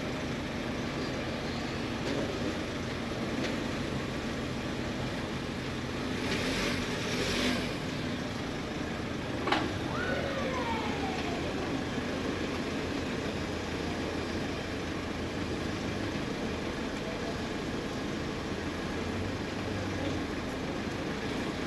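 A car on the move: steady engine and road noise. About six seconds in a louder rushing swell comes and goes, and a little later a sharp click is followed by a tone that falls in pitch over a second or so.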